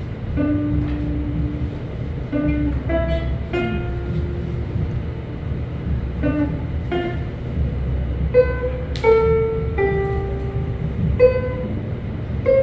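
Ukulele music: a slow melody of single held notes, one after another.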